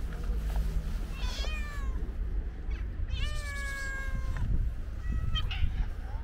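A cat meowing three times: a short meow about a second in, a longer drawn-out meow from about three seconds in, and a brief one near the end.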